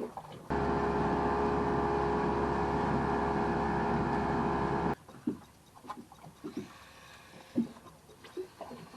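A boat's motor running steadily for about four and a half seconds, starting and cutting off abruptly, followed by scattered light knocks and taps.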